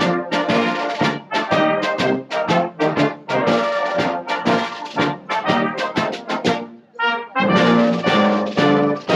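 Brass band playing live: a lively tune of short, separated notes and full chords, with a brief break about seven seconds in before louder held chords.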